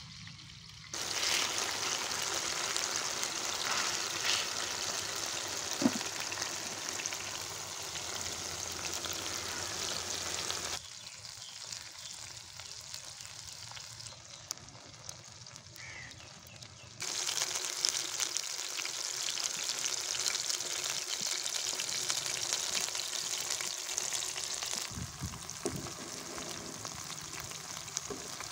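Chapli kababs frying in shallow oil on a large flat iron griddle over a wood fire, sizzling steadily, with a quieter stretch in the middle. A single sharp tap comes about six seconds in.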